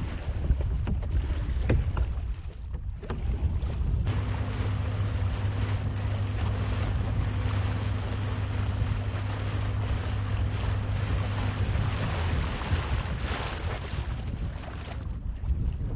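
Small boat's outboard motor running with a steady low hum, which starts suddenly about four seconds in and drops away about twelve seconds in. Wind buffets the microphone and water rushes and splashes along the hull.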